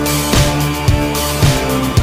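Background rock music with guitar and a steady drum beat, a little under two beats a second.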